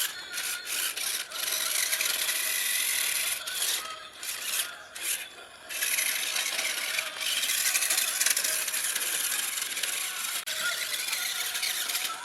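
Toy RC monster truck driving, its small electric motor and gears whirring with a rasping, scraping noise from the wheels on the ground. It stops and starts several times a few seconds in, then runs on steadily.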